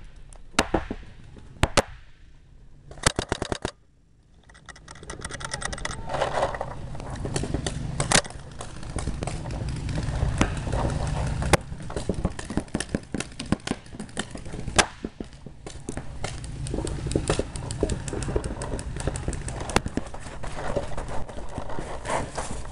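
Paintball markers firing, single shots and quick bursts of sharp pops, with a rapid run of shots about three seconds in. A low rumble of wind and handling noise on the marker-mounted microphone runs underneath.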